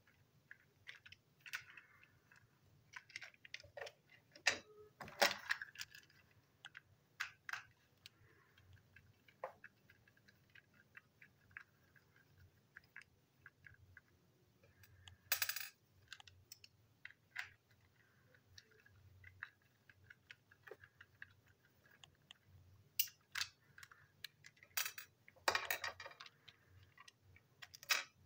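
Plastic parts of TrackMaster toy train vans clicking and clattering as they are handled and fitted together, in irregular sharp clicks with a few louder knocks.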